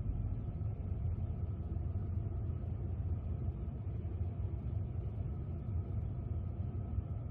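Steady low rumble, with a few faint steady tones above it and no distinct events.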